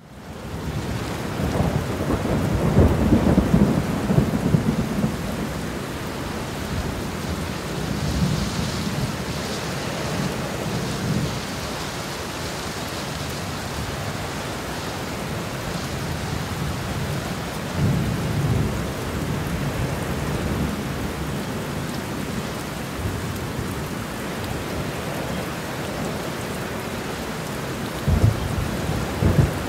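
Thunderstorm: steady rain with rolling thunder. The loudest rumble comes a couple of seconds in, weaker rumbles follow later, and a sharper, louder clap comes near the end.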